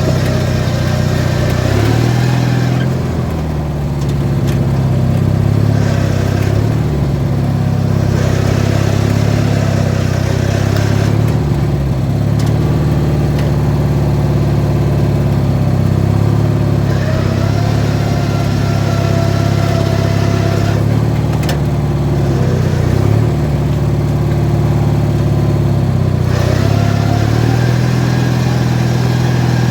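An 18 hp Briggs & Stratton twin-cylinder engine running hard, its speed rising and falling several times as the throttle or load changes.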